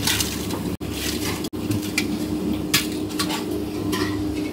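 Steel kitchen utensils clinking and scraping, a slotted ladle against a steel plate, over a steady low hum. The sound drops out briefly twice at edit cuts.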